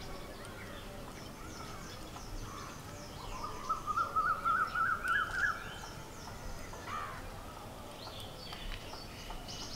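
Birdsong: a bird calls a quick run of notes that climbs steadily in pitch for about two seconds, midway through, with faint high chirps of other birds throughout.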